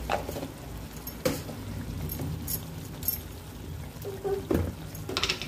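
Masala paste frying and bubbling in hot oil in a metal kadai, with a few sharp clicks through it.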